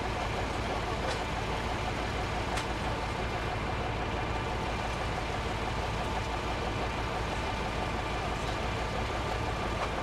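A heavy engine running steadily at idle, with two faint knocks in the first few seconds.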